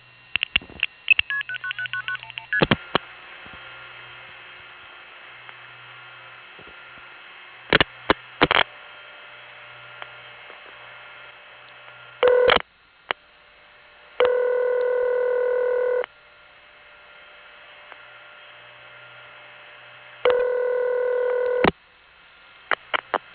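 Telephone line audio of a call being set up: switching clicks and a quick run of short tone pips, then line hiss with a low hum. A buzzy Bell System ringback tone rings twice, about six seconds apart, the second ring cut short as the call is answered.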